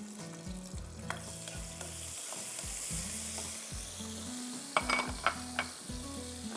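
Crushed garlic sizzling steadily in hot oil in a wok, with a quick run of sharp clicks from a utensil against the pan about five seconds in.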